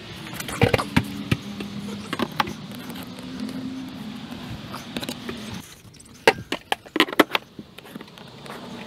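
Knocks and taps of a wooden template being handled against a soffit and marked around, with a cluster of sharper knocks in quick succession near the end. A low steady hum runs underneath through the middle.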